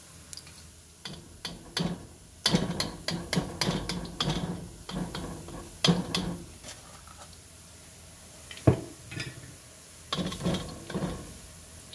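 A foil-wrapped metal ladle knocking and scraping against a wok as it stirs boondi frying in oil. It comes as runs of quick clicks and taps, with one sharper knock past the middle.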